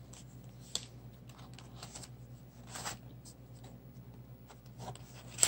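Faint clicks and short paper rustles as a stack of note papers is handled and slid back into a clear plastic case, with a sharper click near the end.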